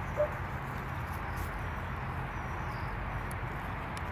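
Steady outdoor background with a low hum and faint bird chirps, broken just after the start by one short dog yip.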